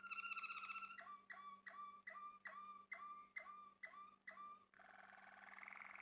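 Male Malinois (Waterslager) canary singing: a held whistled note that falls slightly, then about nine separate repeated notes at a little over two a second, and near the end a rolling trill that rises in pitch.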